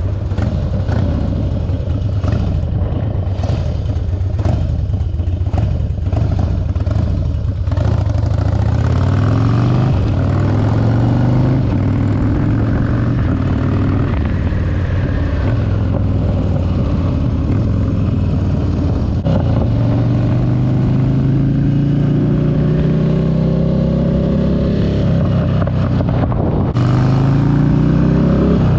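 Harley-Davidson Dyna's Twin Cam 88 V-twin running through a Bassani exhaust while riding, the engine note climbing under acceleration and dropping back at gear shifts several times.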